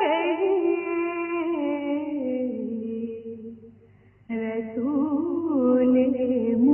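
A woman singing a devotional naat in long, ornamented notes that slowly fall in pitch. She breaks off briefly for a breath about four seconds in, then starts the next phrase.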